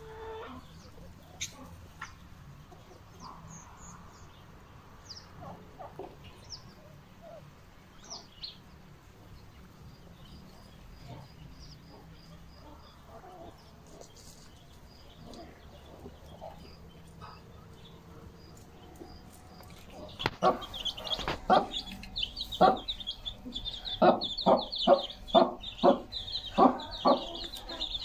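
Chickens clucking softly, with scattered short high chirps. About two-thirds of the way in, loud, rapid high-pitched peeping of chicks starts, mixed with sharp knocks about twice a second.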